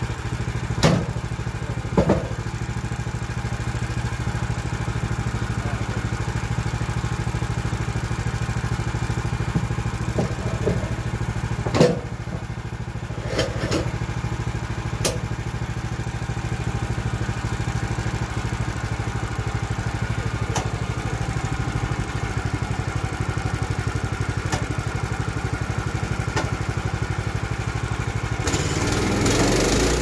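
Portable band sawmill's gas engine running steadily at idle, with several sharp wooden knocks as boards are set on edge on the mill bed. Near the end the engine speeds up and gets louder as the blade is brought into the cut.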